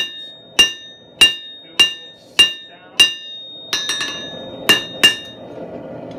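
Hand hammer striking a red-hot bar of 3/8-inch square steel on an anvil, each blow ringing brightly. Six even blows about 0.6 s apart, then a quick run of lighter taps, then two more blows, stopping about five seconds in.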